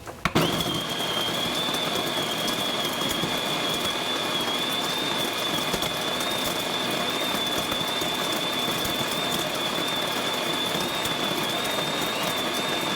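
Sowtech BD-CG-011 electric burr coffee grinder switched on with a click and grinding coffee beans at its super-fine espresso setting, running steadily with a high whine over the grinding. The motor is working hard on the super-fine grind.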